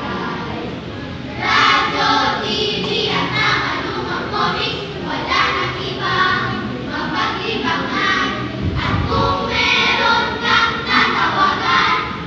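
A group of children voicing a rehearsed piece together in unison, in a sing-song choral delivery, with a low thud about three-quarters of the way through.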